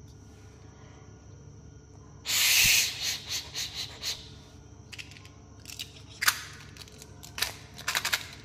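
Candy-coated chocolate gems rattling in a small plastic heart-shaped container: a loud burst of rattling about two seconds in, then several short shakes, about three a second. Sharp plastic clicks and taps follow in the second half as the container and lids are handled.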